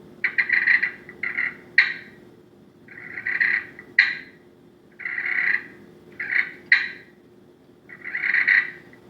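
Slate-over-glass turkey friction pot call worked with a striker, giving hen-turkey purrs and clucks: a rolling purr of about a second, then a sharp cluck, repeated about four times.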